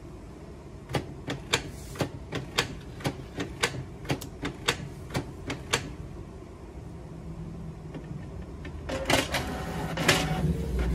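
Canon PIXMA inkjet printer's mechanism clicking sharply about twice a second, then its motors starting a steady whir with a couple of louder clatters near the end as it begins to feed paper. The printer is working again with the paper jam cleared.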